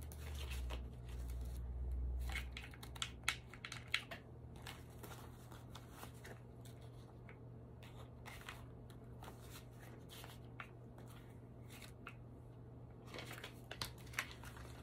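Paper banknotes rustling and flicking as they are handled and sorted, with scattered sharper snaps of the notes. A low hum sounds under it for the first few seconds.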